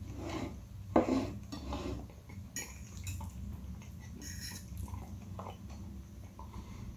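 Metal fork clinking and scraping against a glass plate while gathering up instant noodles, a run of separate clicks and scrapes with the loudest clink about a second in.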